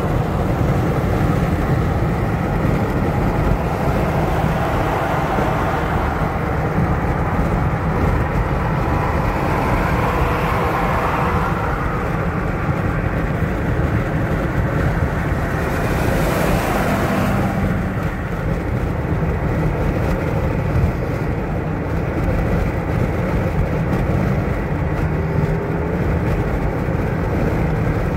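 Steady road and engine noise of a car driving at highway speed, heard from inside its cabin, with a brief swell of hiss about sixteen seconds in.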